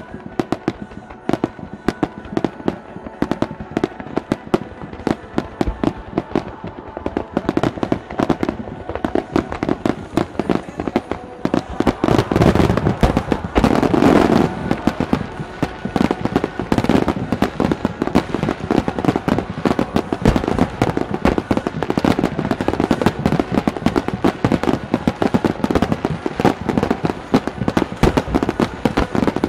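Fireworks display: rapid, overlapping bangs and crackles from aerial shell bursts and low fan-shaped bursts along the water, growing denser and louder about twelve seconds in.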